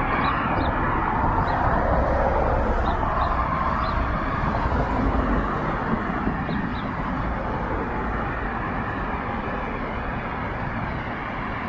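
Road traffic on a multi-lane city street heard from the sidewalk: a steady wash of car and tyre noise, swelling as a car passes in the first few seconds and easing a little after about six seconds.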